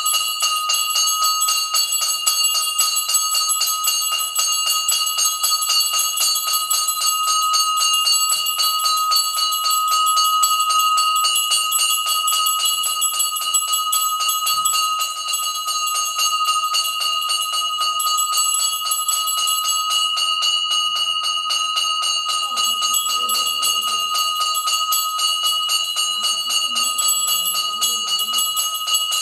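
Metal bells ringing rapidly and without a break: a fast, even clatter of strikes over steady, high ringing tones.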